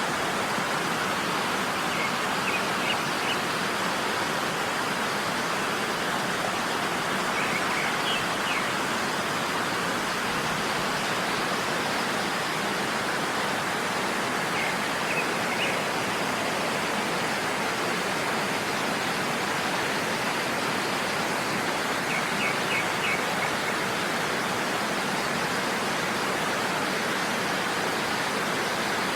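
Waterfall rushing steadily, an even, unbroken sound of falling water. A few faint, brief high chirps come through it now and then.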